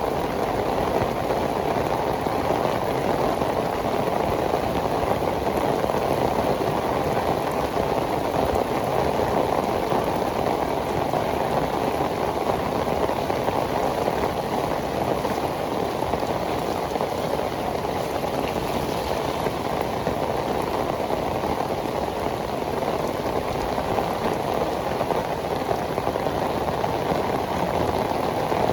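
Heavy tropical rain pouring down steadily, a dense even patter of raindrops hitting pavement.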